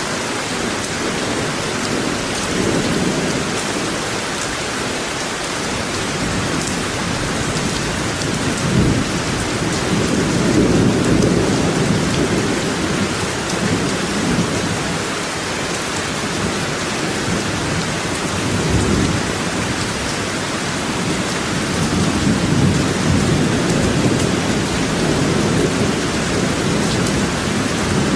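Steady rain falling, an even hiss throughout, with a low rumble swelling up about nine seconds in and again a little past twenty seconds.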